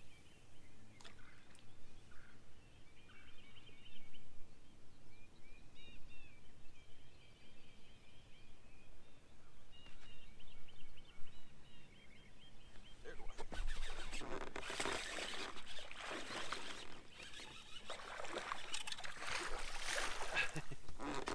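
Birds singing faintly in the background. About two-thirds of the way in, a loud, irregular run of rustling, splashing-type noise starts and carries on.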